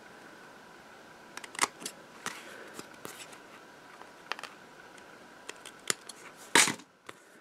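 Teflon-coated scissors snipping the ends off a narrow paper strip on cardstock: a series of short, scattered snips and clicks, the loudest near the end.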